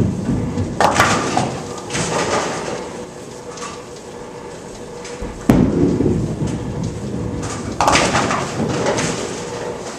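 Bowling sounds, twice over: a ball thuds onto the lane and rolls with a low rumble, then crashes into the pins about two seconds later. The first crash comes about a second in; the second ball lands about five and a half seconds in, and its pin crash comes near the end.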